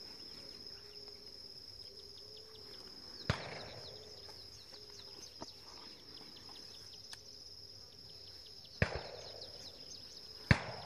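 Three shotgun shots from other guns on the dove shoot: one about three seconds in, one near nine seconds and one near the end. Under them runs a steady high buzz of insects.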